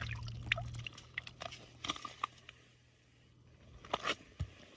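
Scattered light clicks, taps and crunches of hands handling fishing line and gear on the ice while landing a perch from a tip-up. A low steady hum fades out about a second in.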